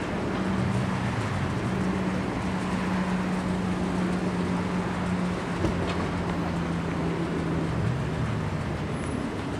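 A steady low mechanical hum over a rumbling wash of noise, with one brief tick a little past halfway.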